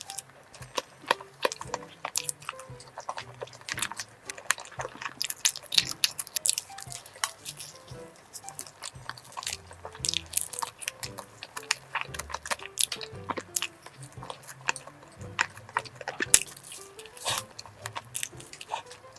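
Close-miked crunchy bites and chewing of a cream-filled cone croissant: many sharp crackles of flaky pastry breaking, scattered irregularly. Soft background music runs underneath.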